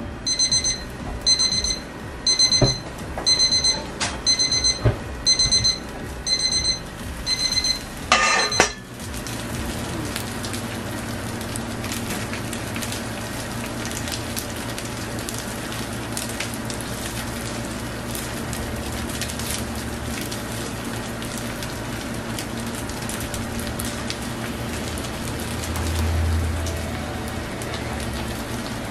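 Tanita digital kitchen timer beeping its alarm in rapid repeated bursts, signalling that the 18 minutes of covered cooking on very low heat are up, until it stops about eight seconds in with a brief clatter. Then a steady crackling sizzle of squid-ink paella in its pan over the gas flame.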